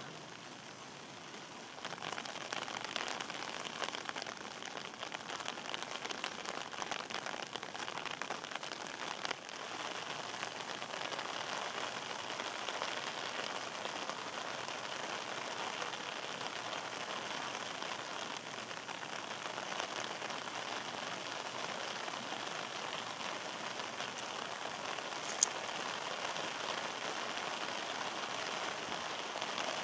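Steady rain falling and pattering on the ground and surfaces, a little louder from about two seconds in. A single sharp click near the end.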